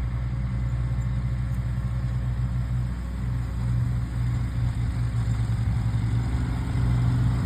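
Engine of an old farm machine running steadily at low speed, a continuous low-pitched hum.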